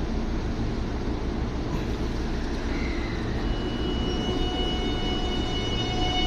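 JR West 207 series electric train at the platform, its equipment giving a steady low hum. About three and a half seconds in, a steady high electric whine from its traction motor drive starts as the train begins to pull away, with more tones joining near the end.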